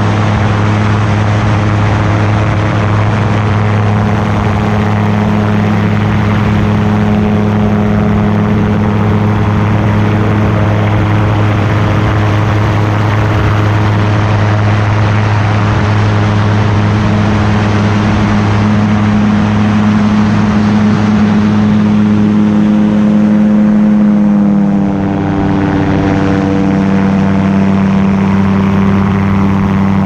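Multirotor drone's motors and propellers buzzing steadily as it flies. About three quarters of the way through, the pitch drops slightly as the motors slow.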